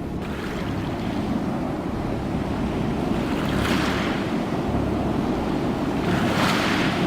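Ocean waves breaking: a steady low rumble of surf with two hissing washes of water, one about halfway through and one near the end.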